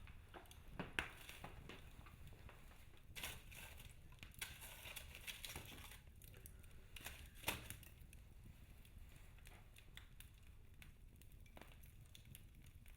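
Wood fire in a fireplace crackling quietly, with scattered sharp pops; the loudest come about a second in and about seven and a half seconds in.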